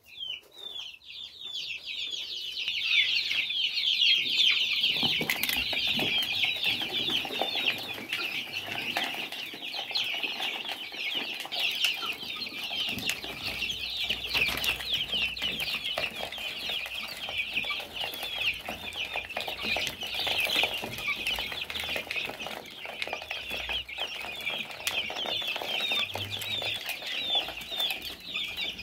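A flock of young chicks peeping continuously, many short high-pitched cheeps overlapping into a dense chorus that starts about a second in.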